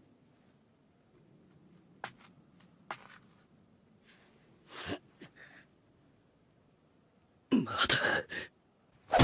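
Mostly quiet, with a few faint clicks and a soft breath about five seconds in, then a loud, harsh gasping exhale falling in pitch near the end: an exhausted fighter's strained breathing.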